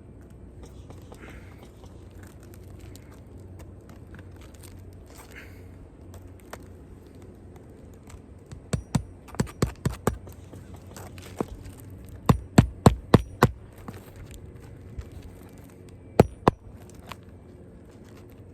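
Hammer driving roofing nails through an asphalt shingle into the roof: three runs of quick sharp blows, the loudest run past the middle and two last blows near the end.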